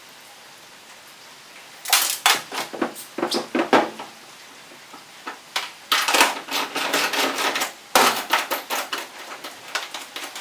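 Hand tools and metal parts clicking and clattering while a truck-bed toolbox is being taken off: about two quiet seconds, then three bursts of rapid clicks and knocks.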